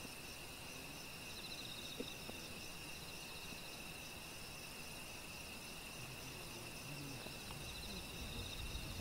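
Crickets chirping steadily and faintly in a continuous high chorus, one of the calls pulsing rapidly.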